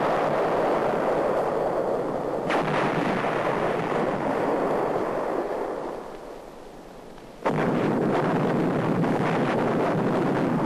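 Explosions with a long, dense roar on an old film soundtrack. A sharp crack comes about two and a half seconds in. The roar dies down around six seconds, then a fresh blast hits suddenly about seven and a half seconds in and roars on.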